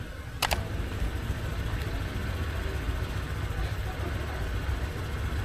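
Steady low rumble of a motor vehicle running, with a sharp double click about half a second in.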